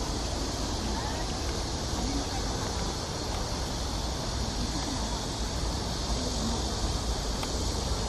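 Steady high-pitched drone of cicadas with a low wind rumble on the microphone and faint distant voices.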